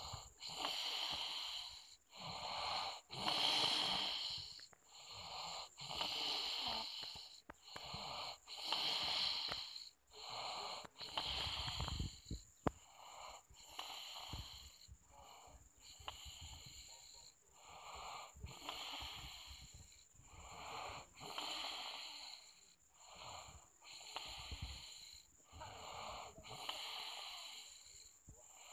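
A sleeping person snoring in a steady rhythm of airy, hissing breaths with little low rumble. A single sharp click sounds about halfway through.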